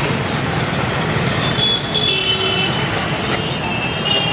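Steady street traffic noise of passing vehicles. Thin high-pitched tones come in about a second and a half in and again near the end.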